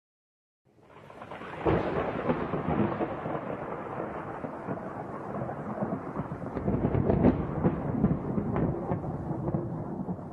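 Thunder: a rumble that fades in, breaks into a sharp crack about two seconds in, then rolls on with a series of crackles.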